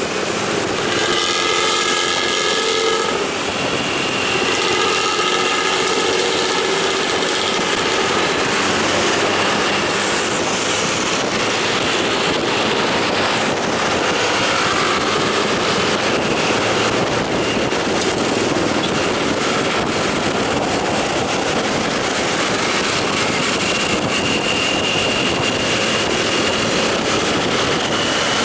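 Loud, continuous bus engine and exhaust noise. A multi-tone bus horn sounds in two spells during the first several seconds.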